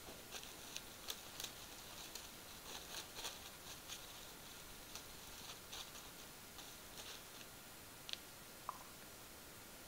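Common ravens moving about on snow: faint, irregular crunching ticks and crackles over a steady hiss, thinning out after about seven seconds.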